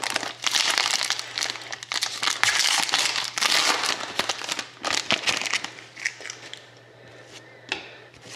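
Foil wrapper of a Panini Contenders hockey card pack crinkling loudly as it is torn open and the cards are pulled out. The crinkling eases off after about five seconds, leaving a few quieter clicks near the end.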